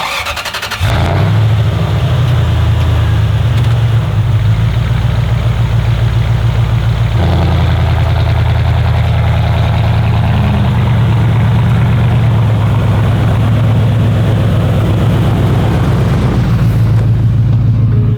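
First-generation Toyota Sequoia's V8 engine cranking briefly on the starter and catching within about a second, then running steadily.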